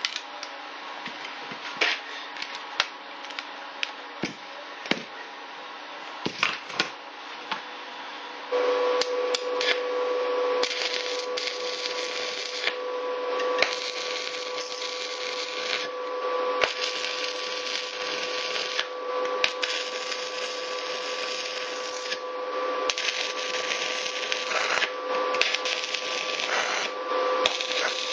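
Steel parts being handled and clamped, with sharp clicks and clinks. Then a welding machine starts a steady hum about eight seconds in. After that come repeated crackling stretches of electric arc welding, each a couple of seconds long with short pauses between: plug welds laid through the holes of a steel reinforcement plate, one after another.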